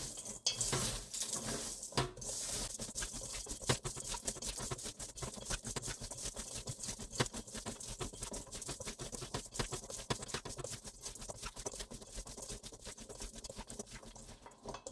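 Peeled bellflower roots being kneaded and rubbed by gloved hands with coarse sea salt and a little water in a stainless-steel bowl. A steady gritty rubbing with rapid, irregular crackling clicks, easing off slightly near the end. The salt rub draws out the roots' bitterness and softens them.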